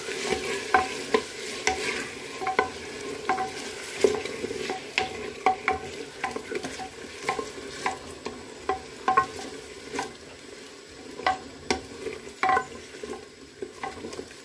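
Chicken and garlic frying in oil in a clay handi, sizzling steadily while a wooden spoon stirs them, knocking irregularly against the earthenware pot about once or twice a second.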